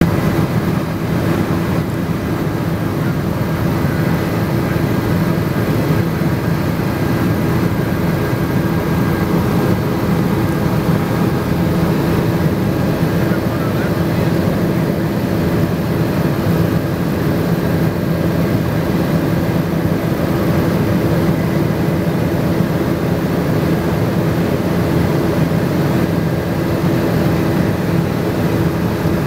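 Helicopter engine and rotor noise heard from on board, loud and steady with a constant low hum.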